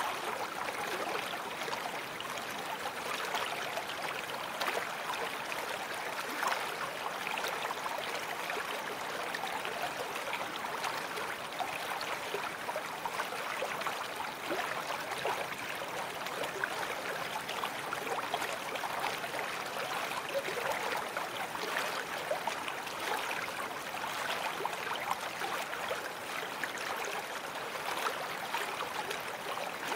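Babbling brook: running water with a steady, even rush and a fine, constantly flickering gurgle.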